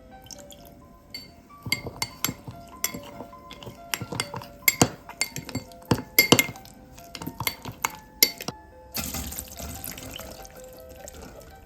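A kitchen utensil clinking repeatedly against glassware and dishes, with a brief watery hiss about nine seconds in. Soft background music with steady tones underneath.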